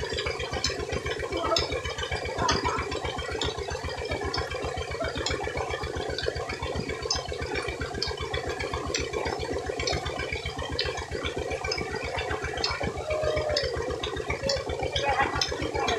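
Tubewell water gushing from the outlet pipe and splashing onto a charpai's netting, over the fast, even low thumping of the pump's engine running.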